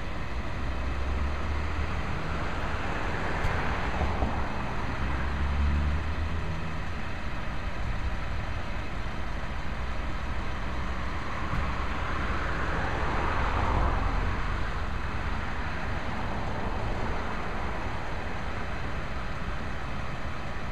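Side-loading garbage truck's diesel engine running at the curb, a continuous rumble that swells twice, as with the engine speeding up to drive the hydraulic packer.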